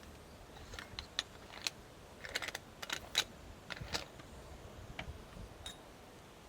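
Scattered light clicks and taps, irregular and mostly bunched in the first few seconds, over a quiet background.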